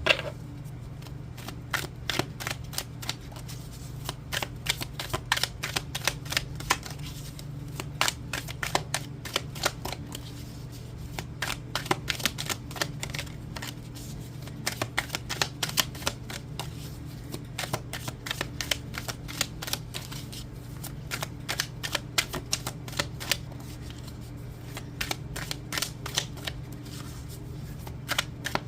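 A tarot deck being shuffled by hand: runs of quick, irregular card clicks and flutters that come and go, over a low steady hum.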